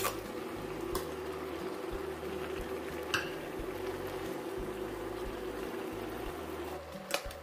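Minced pork and amaranth simmering in a pan of liquid, bubbling and sizzling steadily, with a few light clicks of a spatula or bowl against the steel pan as eggs go in.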